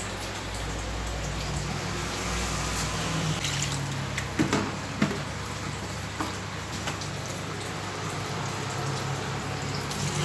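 Water trickling and dripping steadily, with a few sharp knocks about halfway through.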